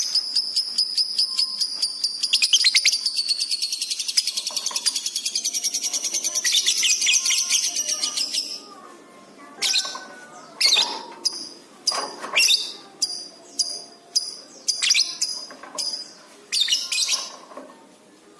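Lovebird singing: a long, very rapid high chattering trill for about the first eight seconds, then breaking into separate short, sharp chirps with gaps between them.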